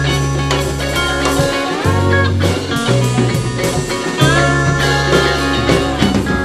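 Live blues-rock band playing an instrumental: electric guitar, bass guitar and drum kit, with a lap steel guitar sliding up between notes.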